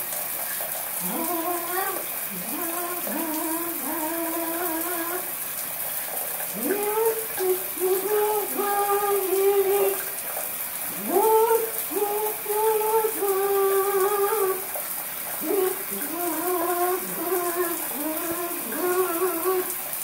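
Harlequin macaw singing: a string of held, clear notes, each swooping up into its pitch, in repeated phrases with a short break partway through. Under it, the steady hiss of running shower water.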